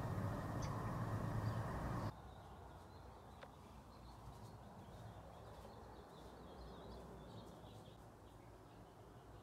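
Steady outdoor background noise that cuts off suddenly about two seconds in. After it comes a quiet background with faint, scattered bird chirps.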